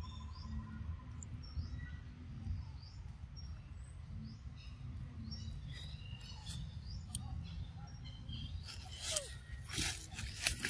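Forest ambience: small birds chirping in short rising calls over a low steady rumble. About nine seconds in, a burst of loud rustling and crackling clicks begins.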